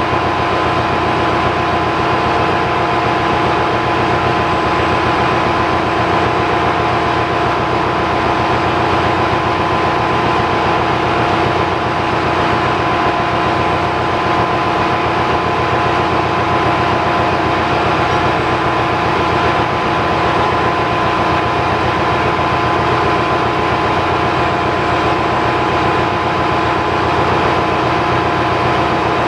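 Steady, loud drone of running machinery in a ship's engine room: a dense noise with several steady whining tones, unchanging throughout.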